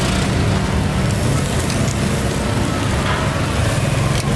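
Meat sizzling and crackling on a charcoal street grill, with a few faint clicks, over a steady low rumble of street noise.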